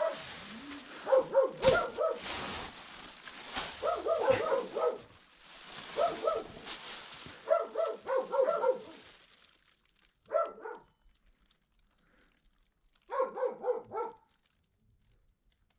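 A dog yipping and whining in about six quick runs of short high notes. Under the first two-thirds, a plastic bag rustles as it is handled and hung on a hand scale, and that rustling stops about nine seconds in.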